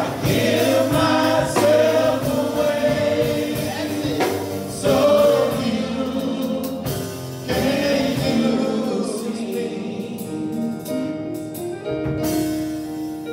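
Gospel singing in a church, voices in a choir-like blend over sustained accompanying chords. About halfway through, the singing thins out and the held chords carry on more softly.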